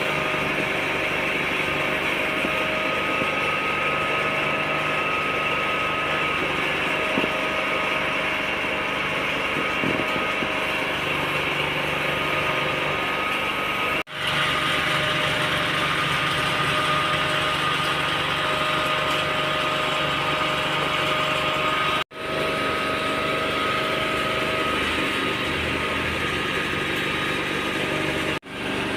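Small engine running steadily at one speed with a constant hiss over it; the sound drops out abruptly for a moment twice, near the middle and near the end.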